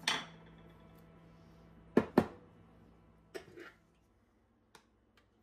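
Kitchen utensils knocked down onto a countertop: a light knock at the start as a plastic measuring cup is set down, two louder clunks about two seconds in, then a few softer taps.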